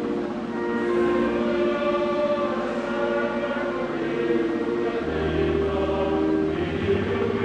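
Church choir singing with long held notes; a low bass note comes in about five seconds in.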